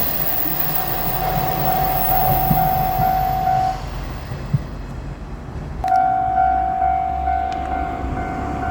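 Japanese level-crossing alarm ringing its repeating electronic tone over the running noise of a passing diesel railcar, a Tosa Kuroshio Railway 1000-series. The alarm cuts out about four seconds in and starts again sharply about two seconds later, over a low rumble.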